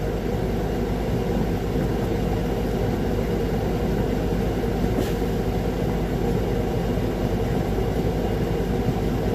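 Heavy diesel engines of a concrete mixer truck and a line pump running steadily, a dense low rumble, with one brief tick about halfway through.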